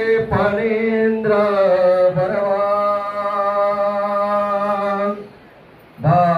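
A song: a singer's voice slides between notes, then holds one long note over a steady low drone. Both break off about five seconds in, and the singing starts again near the end.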